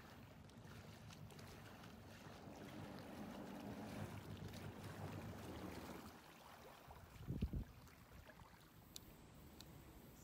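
Personal watercraft engine running faintly at low speed over water, fading out after about six seconds. A short low thump comes about seven and a half seconds in.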